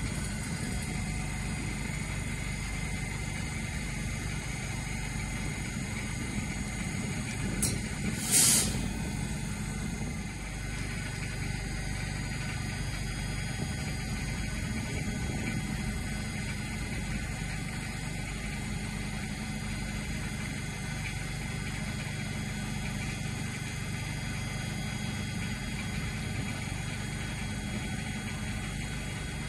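ScotRail Class 385 electric multiple unit standing at a platform, its onboard equipment humming steadily. A short, sharp hiss comes about eight seconds in.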